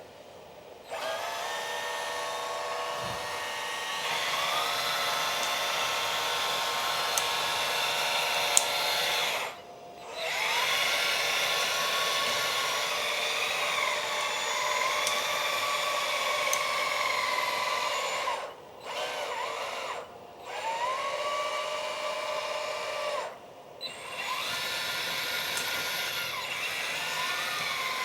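Electric-driven hydraulic pumps of a large all-metal RC excavator whining as it works, the pitch sagging and rising now and then. It stops briefly four times and starts again.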